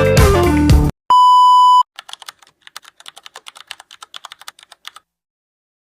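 Guitar background music cuts off, followed about a second in by a single short electronic beep, then a run of faint, quick, irregular clicks like keyboard typing that stops near the end, leaving dead silence.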